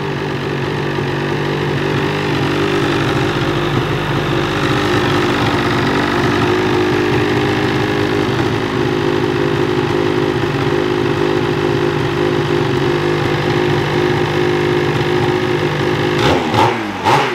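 2022 Ski-Doo Freeride 850's Rotax 850 E-TEC two-stroke twin idling steadily through a GGB Mountain Can aftermarket exhaust, loud even at idle. Near the end the steady idle breaks into a short throttle blip.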